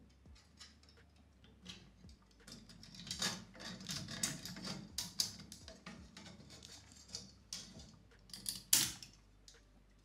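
A plastic CPU-cooler fan and its mounting clips clicking and rattling against the metal fins of a Deepcool AG620 dual-tower heatsink as the fan is fitted back on, with a flurry of clicks in the middle and one louder click near the end.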